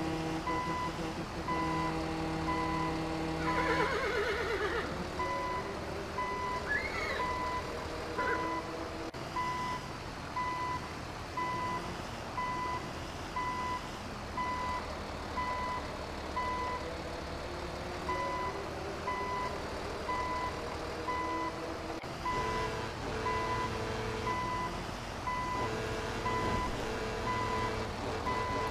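A truck's reversing alarm beeping over and over, with a horse whinnying about four seconds in. Held musical notes play under the beeps at the start.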